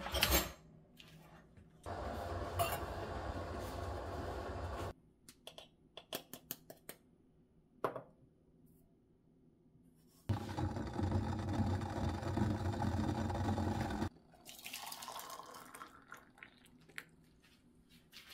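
Water poured into kettles in two long, steady runs, the first about two seconds in and the second about ten seconds in, with scattered light clicks and knocks of kitchenware between them.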